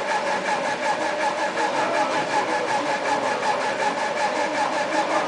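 Laser cutter's stepper motors whining steadily as the head moves, in several held tones that pulse evenly several times a second.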